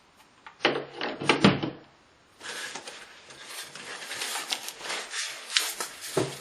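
Contents of a power-tool kit box being handled: a few hard knocks, then a couple of seconds of packaging rustling and crinkling with small clicks.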